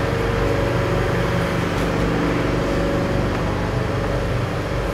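A steady low mechanical drone, made of several even low tones over a hum, that holds unchanged throughout.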